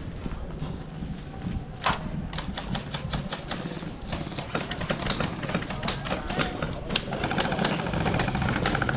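Airsoft guns firing: irregular sharp snapping clicks, one loud crack about two seconds in, then growing thicker and faster from about four seconds in, with faint voices near the end.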